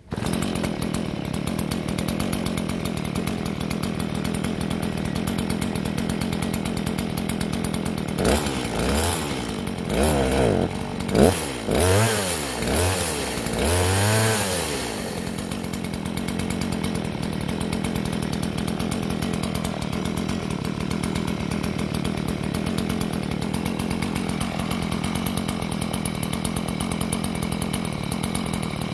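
Stihl two-stroke chainsaw idling steadily, then revved up and let down several times in quick succession about a third of the way in, before settling back to a steady idle.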